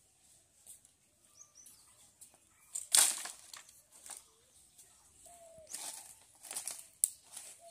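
Dry branches and twigs dropped onto a pile of firewood with a loud crash and rustle of dry leaves about three seconds in, then a few shorter clatters as the sticks are handled and broken. Faint bird chirps in the background.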